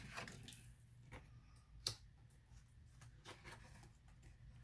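Faint paper handling as pages of a craft paper pad are turned and held: a few scattered soft clicks and rustles, one sharper click about two seconds in, over a steady low hum.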